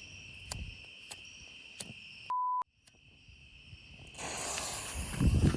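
Steady high trilling of crickets and a short electronic beep about two seconds in. From about four seconds a hiss builds, ending in a loud low thump near the end as the 9-shot 200 g firework cake starts firing.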